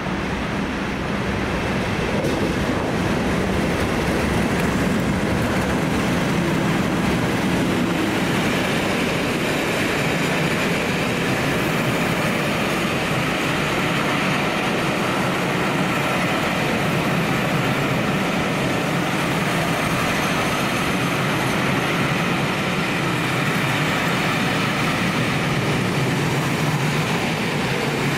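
Two Class 37 diesel locomotives, English Electric V12 engines working, passing close and growing louder over the first few seconds, then the train of coaches rolling steadily past on the rails.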